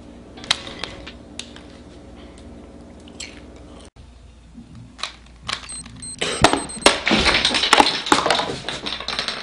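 A few sharp pops over a steady low hum, then a dense run of fast plastic clacking from a Rubik's cube being twisted quickly over the last three seconds.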